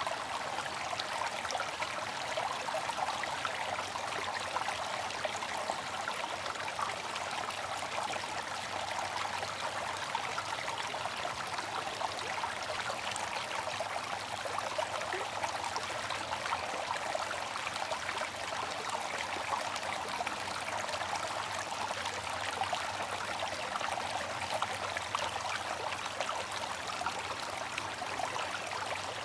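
Bamboo water fountain: water trickling and splashing steadily from the bamboo spout, a constant fine patter with no pauses.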